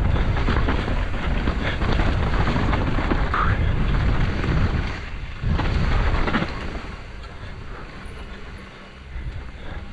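Wind buffeting the microphone and knobby tyres rolling over a dirt trail during a fast mountain-bike descent, with sharp rattles and knocks from the bike over roots and bumps. It gets quieter about seven seconds in as the bike slows.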